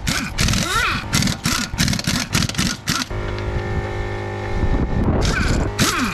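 Background music with a steady beat of about three hits a second and sweeping synth lines. The beat drops out about three seconds in for a held chord, then comes back about five seconds in.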